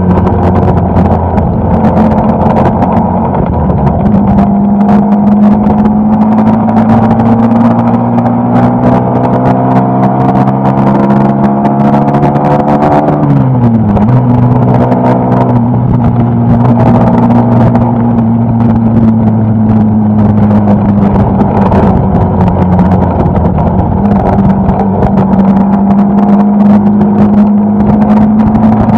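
Suzuki Gixxer SF250's single-cylinder engine running under load while riding, its pitch rising slowly, dipping sharply for a moment about 13 seconds in, then holding steady and easing slightly lower.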